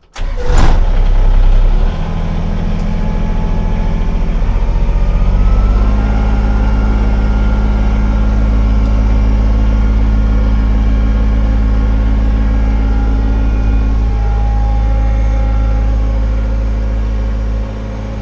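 Kubota BX23S tractor's three-cylinder diesel engine started: a brief crank and it catches, runs loud for a couple of seconds, then settles and runs steadily, heard from inside the enclosed cab. Engine speed steps up a few seconds in, and the sound drops a little near the end.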